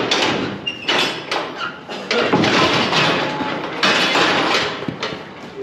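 Steel cattle crush clanging and rattling as its gates are worked and a bullock is let out, a run of loud metallic clatters.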